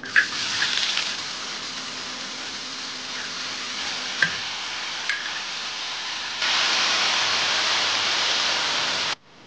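Pork pieces hitting hot oil in a large cast-iron wok and sizzling, with a few clinks of a metal spatula as the vegetables are stir-fried. About six and a half seconds in, the hiss jumps louder as water is poured into the hot wok, then cuts off suddenly near the end.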